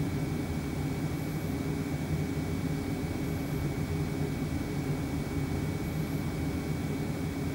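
Steady whooshing hum in a VW Sharan's cabin: the interior blower fan running while the D3WZ diesel auxiliary heater, converted to a parking heater, warms the car. A thin steady whine sits above it.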